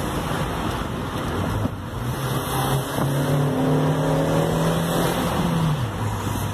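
Volkswagen Saveiro pickup's engine heard from inside the cabin while driving in city traffic. The engine note steps up and rises gently under acceleration, then drops back lower near the end as the throttle eases.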